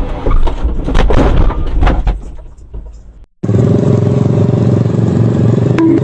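Road and cab noise with several sharp knocks, fading out after about three seconds; then a small motorcycle engine starts up loud and runs at a steady speed, with a fast even pulse.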